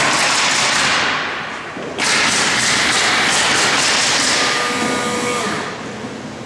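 Handheld power tool running in two long bursts: the first stops just under two seconds in, and the second starts right after and runs about three and a half seconds.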